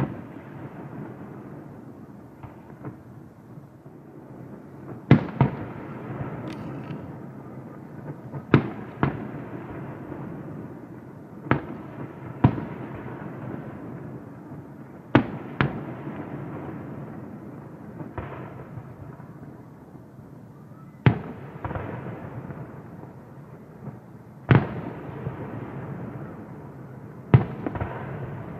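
Aerial fireworks display: shells bursting in a dozen or so sharp bangs, often in pairs a fraction of a second apart. Each bang trails off in a rolling echo over a continuous low rumble.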